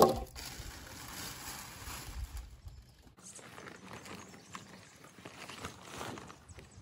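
Handling stacked wooden boards under a plastic sheet on gravel: one sharp knock right at the start, then rustling and scattered wooden knocks, scuffs and footsteps.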